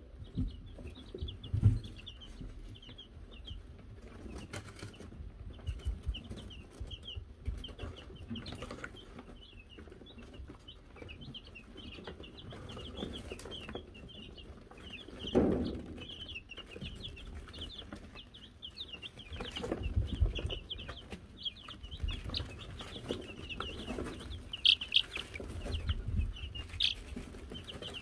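A brood of Wyandotte chicks peeping continuously, many short high chirps overlapping, with occasional low thumps, the loudest about halfway through.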